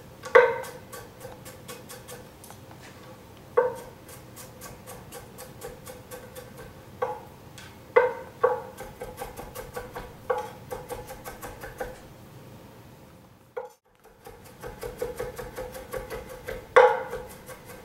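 Chef's knife mincing ginger on a wooden cutting board: a fast run of light taps, several a second, broken by a few louder knocks that ring briefly. The sound cuts out completely for a moment about three-quarters of the way through.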